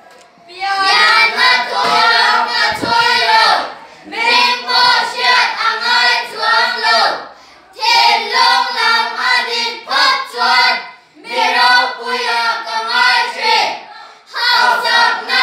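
A small group of children singing a Mizo song together in unison, with no accompaniment. There are five sung phrases of about three seconds each, with short breaths between them.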